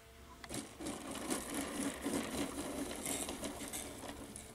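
RC scale model plane touching down on grass about half a second in and rolling out: an irregular rattling clatter of the fixed landing gear and airframe bumping over the turf, fading as the plane slows.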